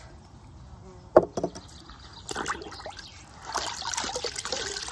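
A single knock about a second in, then water splashing and trickling as a large grouting sponge is dunked and wrung out in a bucket of water, growing louder over the last second or so.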